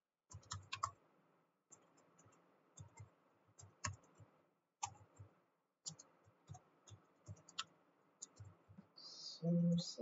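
Typing on a computer keyboard: irregular runs of sharp key clicks with short pauses between them. Near the end a voice says "source is".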